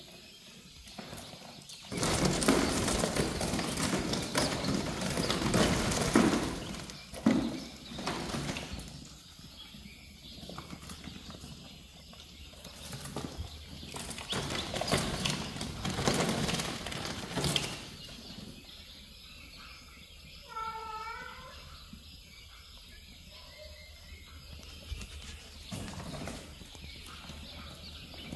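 Caged quail fluttering and scuffling in alarm, startled by the light: loud rustling flurries for several seconds, then shorter bursts, and a brief pitched call about twenty seconds in.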